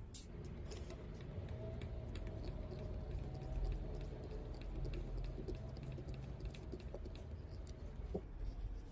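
A small cross-head screw being turned into a green bamboo tube with a screwdriver: a run of small clicks and creaks as it bites in and is driven down flush.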